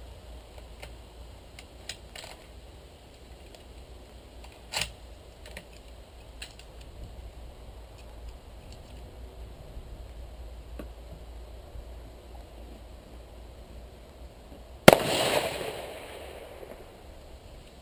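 A single shot from a .308 Winchester bolt-action rifle (CZ 557 Varmint) fitted with a titanium muzzle brake, about fifteen seconds in. Its report echoes away over about a second and a half. A fainter sharp crack comes about five seconds in, with a few small clicks before it.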